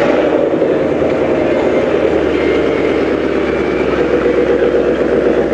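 A car engine idling steadily close by, a loud, even, rapid exhaust pulse.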